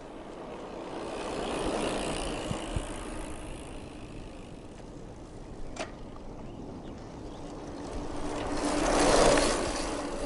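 A bicycle rolling along a sidewalk, its tyre noise swelling and fading twice: once about two seconds in, and again, louder, near the end. A single sharp click falls midway between the two.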